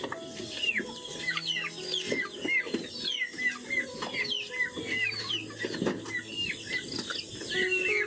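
Chickens clucking and cheeping: many short, high, downward-sliding calls, several a second.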